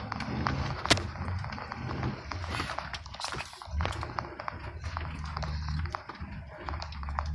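Ford F-250 pickup heard from inside the cab as it pushes through tall brush. The engine drones low and steady, with many irregular clicks, snaps and rattles from vegetation and the shaking cab. The drone briefly drops away twice.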